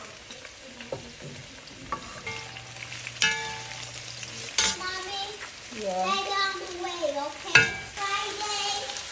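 Chicken lo mein sizzling as it is stir-fried in a pan, with a few sharp clanks of a utensil striking the pan. A voice sounds over it in the second half.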